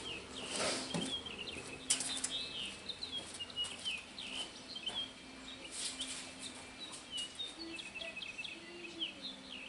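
Small birds chirping, many short quick chirps one after another, with a few brief rustling flutters about half a second in, two seconds in and around six seconds in. A faint steady hum runs underneath.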